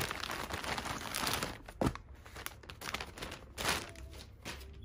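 Plastic poly mailer bag crinkling and rustling as it is handled and opened by hand, with a sharp snap about two seconds in and another burst of crinkling later on.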